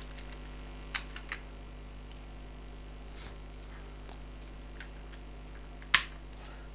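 A few separate computer keyboard and mouse clicks over a steady electrical hum, the loudest click about six seconds in.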